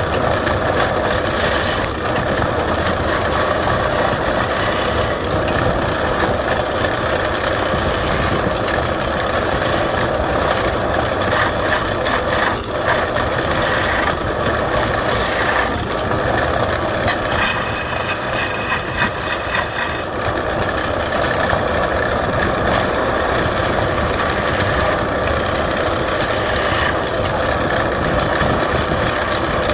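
Wood lathe running steadily, with a turning tool cutting the spinning wood.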